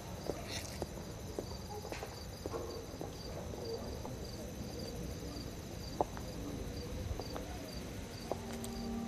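Crickets chirping steadily in a night ambience, an even pulse of about two chirps a second, with scattered faint knocks and clicks and one sharper click about six seconds in.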